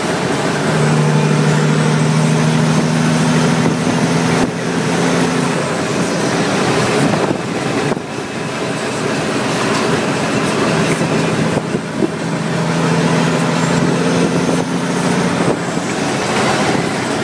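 Caterpillar C15 inline-six diesel in a Western Star 550 truck, heard from inside the cab, pulling under load over heavy road and wind noise. Its steady engine tone fades about six seconds in and comes back strongly about twelve seconds in, as the truck goes through its gears.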